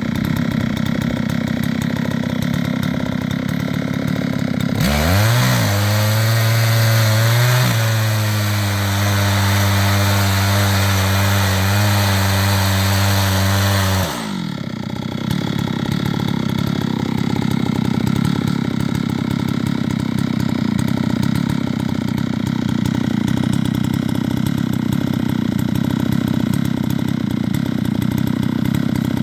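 Chainsaw on an Alaskan chainsaw mill running at a low idle. About five seconds in it is throttled up, its pitch climbing, and runs hard with a loud hiss, typical of the chain cutting through a walnut log. After about nine seconds it drops back to idle for the rest.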